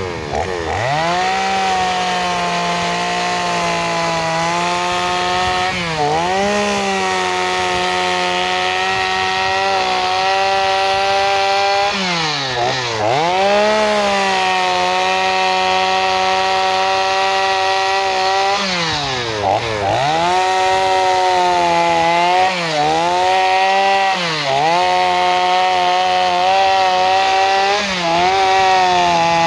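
Two-stroke gasoline chainsaw running at high revs while carving into a log. Its engine note dips and climbs back again several times as it cuts.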